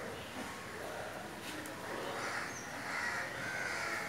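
Birds calling repeatedly, several short harsh calls about a second apart.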